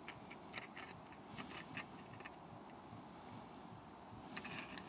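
Saw set plier squeezing and bending the teeth of a crosscut saw one by one: faint, irregular metallic clicks, with a louder cluster near the end.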